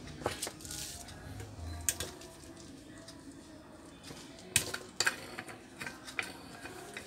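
Irregular sharp clicks and knocks of plastic and wire as a Dowell stand fan is taken apart by hand, its front wire guard lifted off and the blade's spinner cap unscrewed from the motor shaft. The loudest knock comes a little past halfway.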